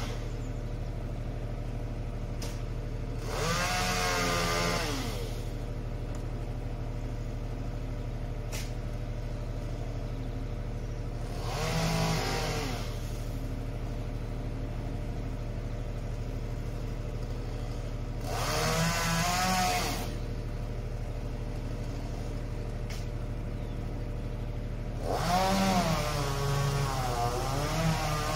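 A chainsaw revved in four short bursts, each a couple of seconds long with its pitch rising and falling, over the steady low hum of the aerial lift truck's idling engine.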